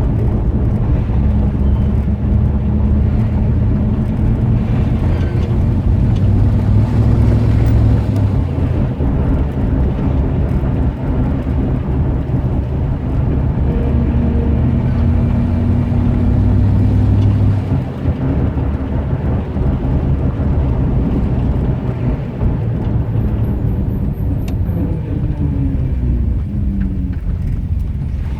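1989 Dodge Ramcharger's V8 engine running, getting louder a few seconds in and easing back about two-thirds of the way through. A steady tone rides over the engine at times, and the pitch falls near the end as the revs drop.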